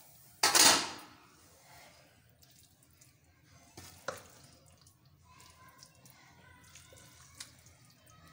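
A serving spoon scooping cooked cabbage-and-mutton curry out of an aluminium pot and onto a plate: one loud scoop and scrape about half a second in, then a few light taps and clicks.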